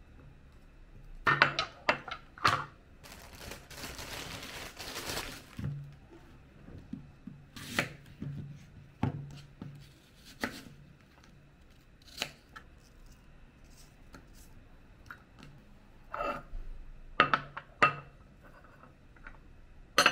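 Kitchen food-prep handling: blueberries and a small plastic tub clicking against a glass bowl, a few seconds of rustling, then a knife cutting an apple with sharp knocks on a cutting board. Near the end a glass bowl clinks down onto a ceramic plate.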